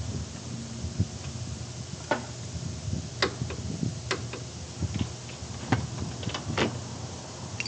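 Irregular sharp clicks and taps, about eight to ten of them, over a steady low hum.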